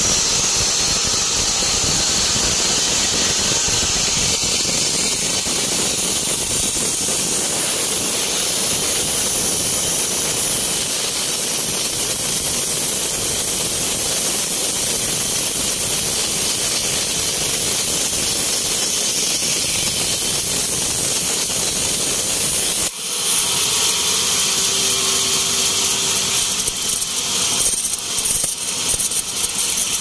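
Band sawmill ripping a thin board off a teak log: a loud, steady blade-and-motor noise. About two-thirds of the way in it breaks off abruptly and starts again rougher, with a few sharp knocks near the end.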